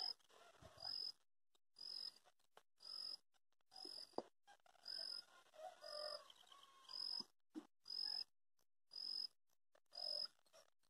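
Faint, short high-pitched chirp from a calling animal, repeated steadily about once a second.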